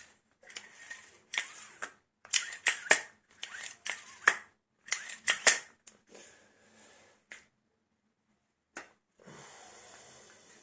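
Hands handling a just-reassembled rope recoil starter: a run of sharp clicks and knocks with brief rustling, busiest in the first half, then a few single clicks.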